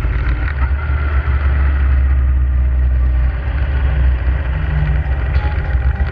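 Motorcycle engine running steadily while riding along, a low rumble, with wind and road noise over it.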